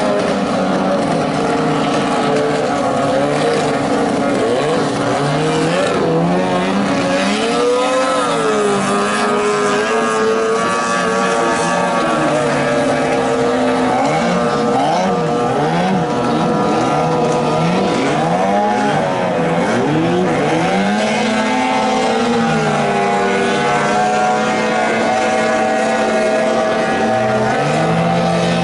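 Several 15 hp outboard motors on racing boats running hard at the same time, their engine notes overlapping. The pitches keep sweeping up and down as boats pass and throttle, with a boat passing close near the end.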